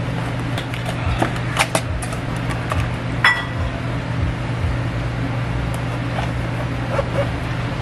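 Light handling of a paper cake box and a plastic candle pack: a few soft taps and rustles and one sharper click about three seconds in, over a steady low hum.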